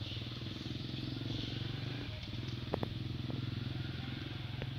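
A steady low engine hum, with a few short sharp ticks around the middle and one near the end.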